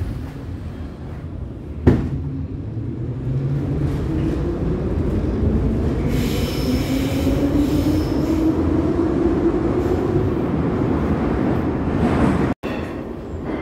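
Metro train pulling away from a station, heard from inside the car: the traction motors' whine rises steadily in pitch as it accelerates, over the rumble of the wheels. There is a single sharp knock about two seconds in.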